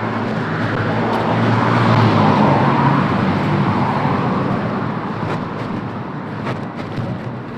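Street traffic: a car passing close by, its noise swelling to a peak about two to three seconds in and then slowly fading.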